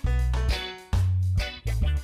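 Music: a guitar-led track with a deep bass line, the notes changing about every half second.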